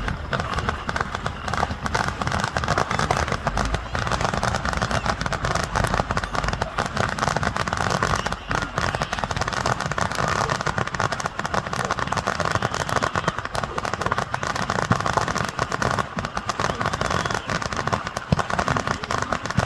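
Fireworks crackling in a dense, continuous stream of small rapid pops, with voices underneath.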